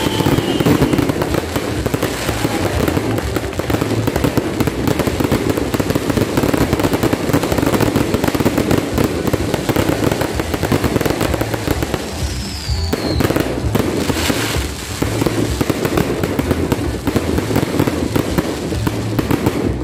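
Fireworks barrage going off at close range: dense, continuous crackling and popping, with a short falling whistle about twelve seconds in. Music plays underneath.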